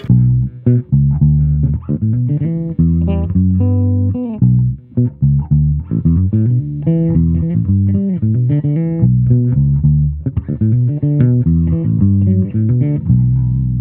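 Cunningham RLJ6 headless electric bass playing a line of plucked notes, with the bass frequency knob fully boosted and the mid-range switch in the middle position.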